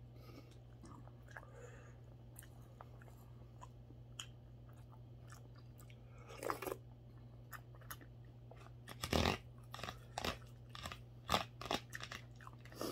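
A person chewing and crunching food close to the microphone over a steady low hum. It is faint at first; from about two-thirds of the way in, a quick run of loud, sharp crunching clicks follows.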